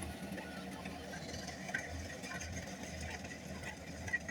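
Kubota rice combine harvester's engine running steadily with a low hum, with faint scattered ticks and rattles over it.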